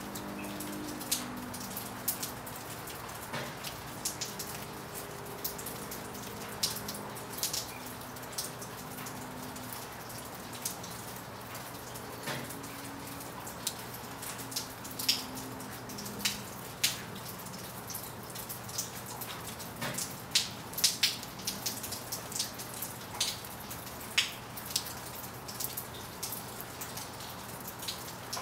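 Winter rain falling steadily, with individual drops striking as sharp, irregular taps, a few of them louder about two-thirds of the way through.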